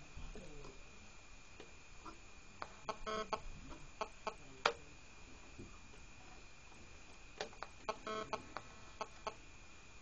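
1965 portable transistor radio being tuned across the FM band between stations: a steady high whistle under faint hiss, broken by short clicks and two brief chirping squawks as the dial moves, the sharpest click about halfway through.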